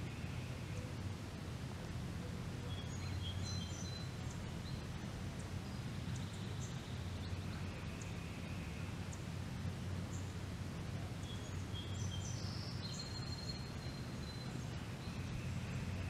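Backyard ambience: a steady low hum under scattered short bird chirps and whistles, which come in clusters about three seconds in and again from about eleven seconds, with one longer held whistle near the end.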